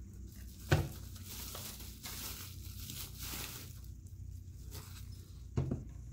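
Plastic bubble-wrap packaging crinkling as a camping lantern is handled. Two sharp knocks stand out, one about a second in and one near the end.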